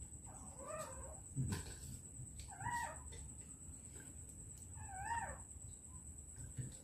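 Newborn puppy crying: three short high-pitched whines, each rising and falling, about two seconds apart.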